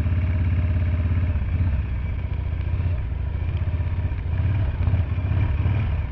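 Harley-Davidson V-twin engine running at low speed while the bike is ridden, a steady low rumble that eases a little after about a second and a half and builds again near the end.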